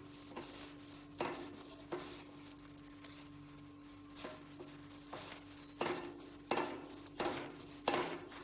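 A degreaser-soaked cloth pulled through between the cogs of a bicycle cassette to scrub out the grime. It makes a run of short rubbing strokes, a few spread out at first, then about one every two-thirds of a second, over a faint steady hum.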